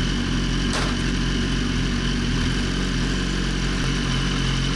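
BMW S1000RR's inline-four engine running steadily at idle, in gear on a rear stand while the gearbox relearns its shift values after a transmission-adaptation reset. One sharp click comes just under a second in.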